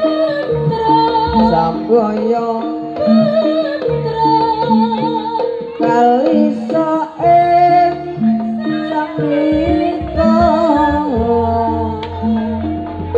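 Live jaranan accompaniment music: instruments play a melody of held notes stepping up and down while a singer's wavering voice carries the tune above it. A low, steady bass note joins near the end.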